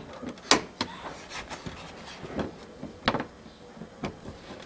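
Irregular clicks and taps of a Torx T20 screwdriver working the screws that hold a car's plastic under-bumper cover, with a few sharp clicks among quieter handling noise.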